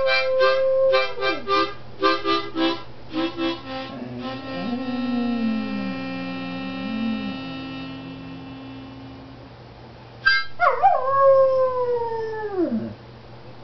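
A dog howling along to music. A held howl trails off about a second in while rhythmic chords play, then one long chord sounds. Near the end the dog gives another long howl that slides down in pitch.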